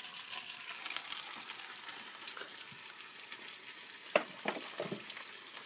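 Faint crackling sizzle from freshly oven-baked spicy chicken wings still hot in their juices in a foil pan, with a few soft clicks a little after four seconds in.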